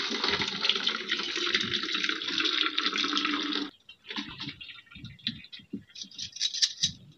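Hot water and boiled black mushrooms poured from a metal pot onto a perforated metal plate to drain, a steady splashing pour that stops abruptly about three and a half seconds in. Then scattered metal clinks and scrapes as the last mushrooms are tipped out.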